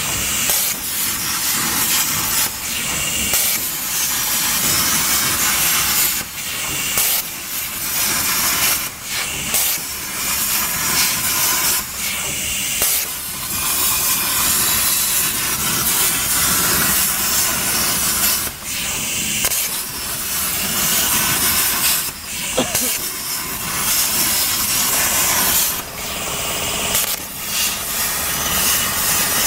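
CNC plasma cutter's torch cutting 2 mm galvanized steel sheet: a loud, steady hiss from the plasma arc, broken by short dips every few seconds.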